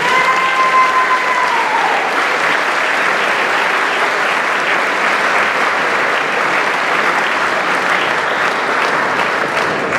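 Audience applauding steadily in a hall. For about the first two seconds a high held tone sounds over the clapping, then drops slightly in pitch and fades.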